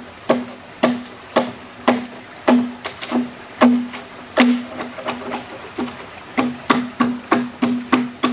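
Repeated chopping blows of a blade into wood, each with a short hollow ring, about two a second at first and quickening to about three a second near the end.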